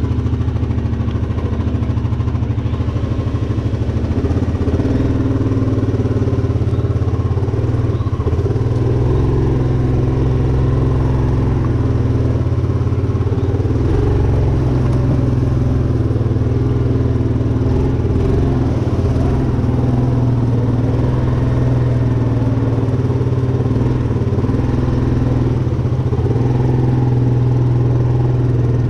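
Four-wheeler (ATV) engine running steadily at low speed, its pitch rising and falling a little as the throttle changes.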